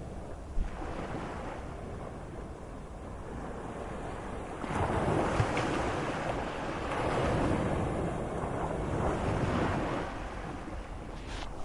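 Moderate sea: waves washing and surging, with a louder wave rushing in about halfway through and easing off near the end. A steady low rumble of wind runs underneath.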